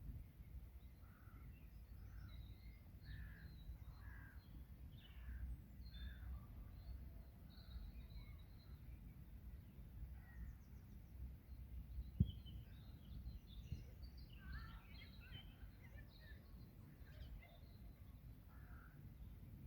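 Faint birdsong and bird calls: a run of short, repeated harsher calls with small higher chirps among them, over a steady low rumble. A single sharp knock sounds about twelve seconds in.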